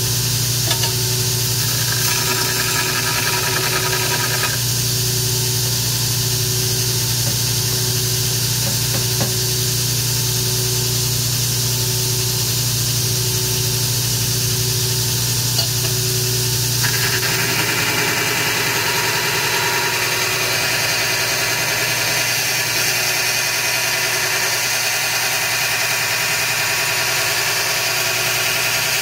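Grizzly 2x72 belt grinder running steadily with a worn 36-grit belt while an AEB-L stainless steel knife blank is ground on it. The grinding hiss comes in briefly early on, then grows louder and stays on from a little past halfway to the end.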